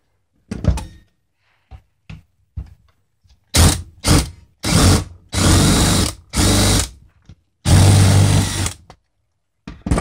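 Cordless DeWalt drill running in about six short bursts, the last about a second long, as it bites into metal. It is drilling out the welded joint that holds the locked gear of a collision-jammed seatbelt retractor.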